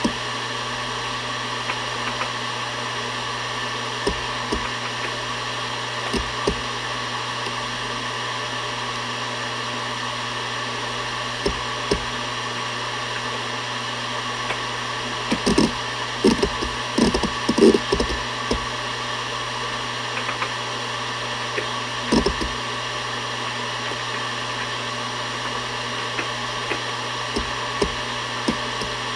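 Seagate Barracuda ES.2 ST31000340NS 7200 rpm hard drive spinning with a steady hum, its heads seeking in short clicks. The clicks come singly every few seconds and in a quick cluster about halfway through.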